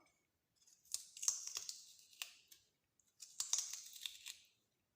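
Knife cutting into a raw turnip to carve out its core: crisp crunching and scraping clicks in two bursts, the first about a second in and the second just past three seconds.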